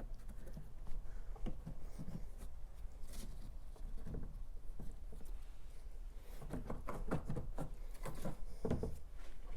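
Plastic engine-bay cover panel on a car being worked loose and lifted out by hand: scattered knocks, clicks and rubbing of plastic, busier in the second half.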